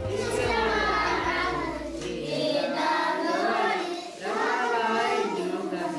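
A class of children singing together in unison, in three phrases of about two seconds each. A low hum underneath stops about two seconds in.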